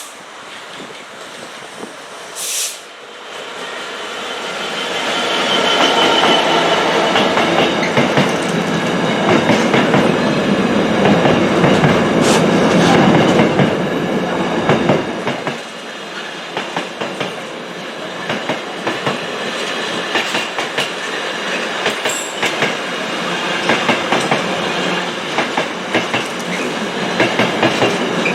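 A train running past on the track, growing louder over the first few seconds, with high wheel squeal and the clickety-clack of wheels over rail joints, which ticks on in a regular rhythm through the second half.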